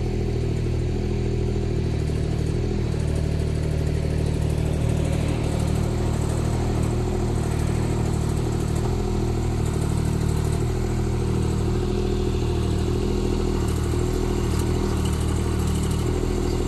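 OKW 25 mini excavator's engine running steadily.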